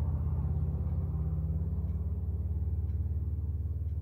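Steady, low-pitched rumbling hum with a fine, rapid pulse, like a motor running.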